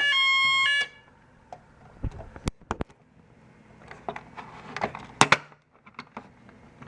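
An electronic fire alarm sounder on a Snap Circuits test panel gives a short harsh tone that steps up in pitch and cuts off within the first second. Scattered clicks and knocks follow as switches and parts are handled, busiest about four to five seconds in.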